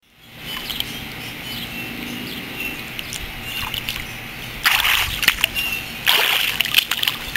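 Bare feet kicking and splashing in churning water, fading in from silence. The splashing gets louder about five seconds in and again near the end.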